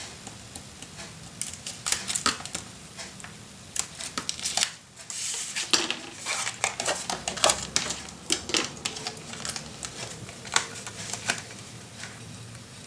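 Paper and card being handled on a craft table: scattered irregular taps and clicks as sheets are picked up and laid down, with a brief rustle of paper about midway.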